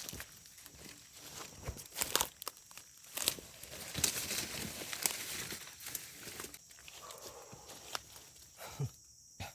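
Footsteps crunching and rustling through undergrowth and leaf litter, with irregular snaps and crackles, busiest in the middle.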